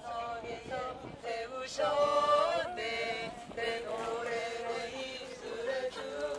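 A man singing a slow, chant-like melody in long held notes.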